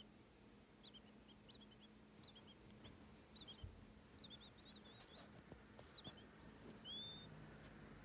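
Newly hatched quail chicks peeping faintly: short high chirps in small runs about every second, with one longer, louder peep near the end.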